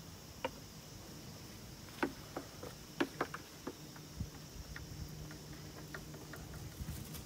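Scattered light clicks and taps of PVC water pipe and plastic fittings being handled and fitted together, over a faint steady background hum. The taps are sparse at first and come more often from about two seconds in.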